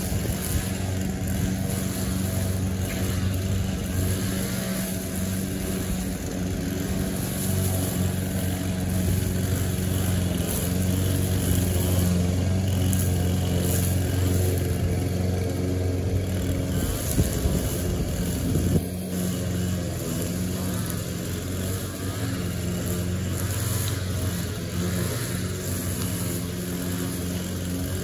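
Gas string trimmer engine running steadily at working speed, with a brief change in its note about two-thirds of the way through.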